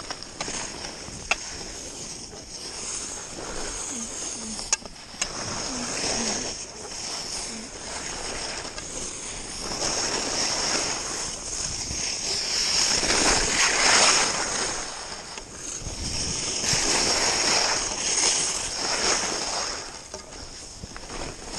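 Skis scraping and carving on packed snow, the hiss swelling and fading with each turn and loudest in the middle stretch, with wind rushing over a helmet-mounted camera. Two sharp clicks come about one and five seconds in.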